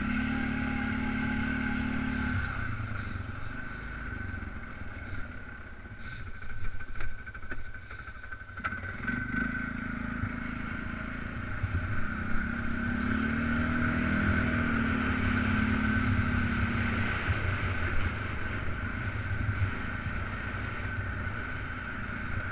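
Polaris Sportsman 500 ATV's single-cylinder engine running while ridden, easing off with a few clattering knocks about a third of the way through, then revving up and back down.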